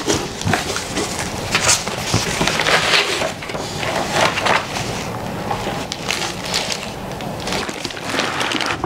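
Cardboard box being unpacked by hand: flaps folded back and paper sheets lifted out, with irregular rustling, crinkling and scraping of cardboard and paper.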